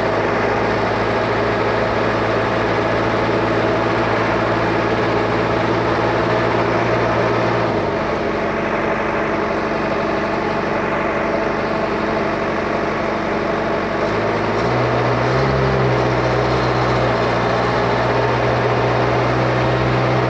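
Diesel engine of a JCB 4DX backhoe loader running steadily as it is driven, its engine speed dropping about eight seconds in and rising again about fifteen seconds in.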